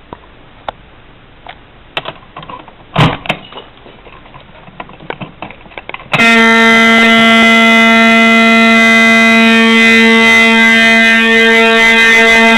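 Faint clicks and taps for about six seconds, then a fire alarm horn starts abruptly and sounds continuously with a loud, steady, buzzy tone.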